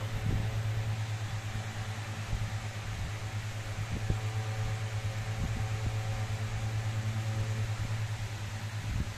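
Steady low mechanical hum with a slight pulsing, and a few soft thumps and rustles as a beagle puppy noses and burrows into the bedding.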